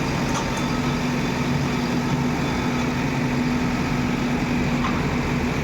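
Heavy diesel engine of a construction machine idling steadily, with a couple of faint knocks.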